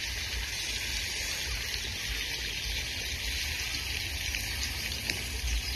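Steady outdoor background noise: an even hiss with a gusty low rumble of wind on the microphone.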